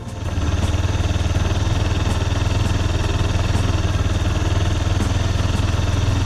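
Kawasaki 250TR's single-cylinder four-stroke engine idling steadily with a rapid, even pulse, cutting in suddenly at the start.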